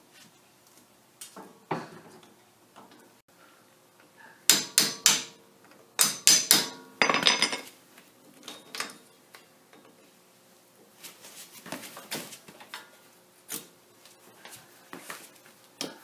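Pliers and a small hand tool clinking against the steel spindle nut and nut retainer of a Jeep's Dana 30 front hub as the cotter pin and retainer are worked off: sharp metallic clicks and taps, loudest in quick runs about four to seven and a half seconds in, then scattered lighter clicks.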